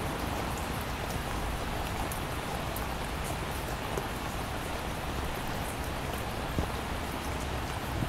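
Steady heavy rain sound effect: an even hiss of rainfall with scattered individual drop taps, and one sharper tap near the end.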